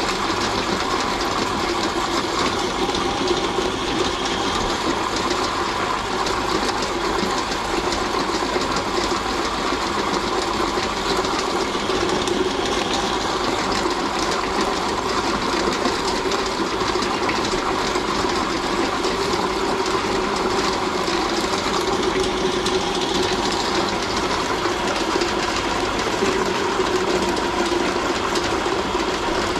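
Motor-driven meat grinder running steadily as it grinds raw chicken, a constant hum with a dense mechanical rattle.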